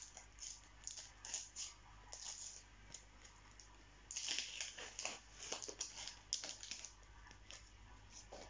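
A Panini sticker packet being torn open and handled, with stickers pulled out: faint, short crackling rustles, busiest from about four to seven seconds in.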